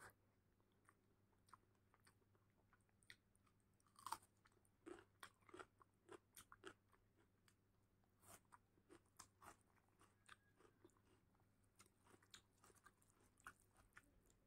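Faint, close-miked chewing of a mouthful of rice and dal, with sharp wet mouth clicks and lip smacks, thickest from about four to ten seconds in.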